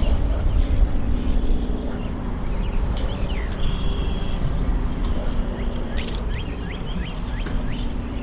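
Small birds chirping repeatedly in short, falling notes over a steady low rumble, with one brief held whistle about three and a half seconds in.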